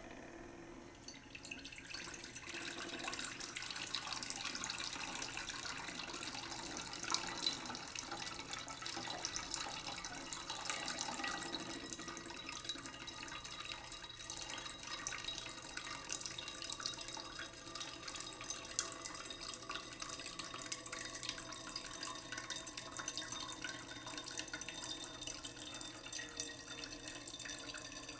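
Kitchen tap running into a plastic colander in a stainless steel sink, splashing as hands rub and rinse a bowlful of fresh red peppers under the stream.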